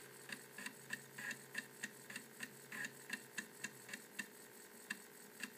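Amiga 1200 3.5" floppy drive reading a boot disk: its read/write head stepping from track to track in short, even clicks, about four a second, while the system loads Workbench from the disk.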